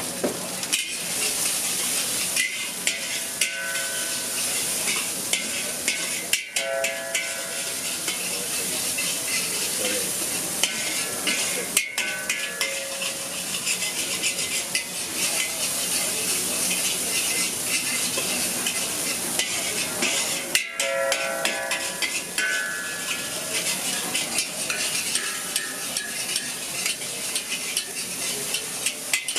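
Rice frying in a hot wok with a steady sizzle, as a metal spatula stirs and scrapes it, clacking against the wok over and over. Now and then there are short ringing metal tones.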